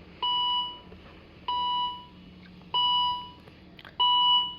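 Electronic warning beeper sounding in a steady rhythm: four short, even two-tone beeps about a second and a quarter apart.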